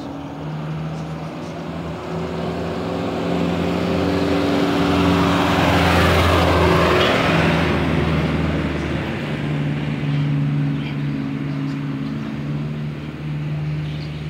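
A motor vehicle passing by on the road. Its engine sound grows louder to a peak about halfway through, then fades away.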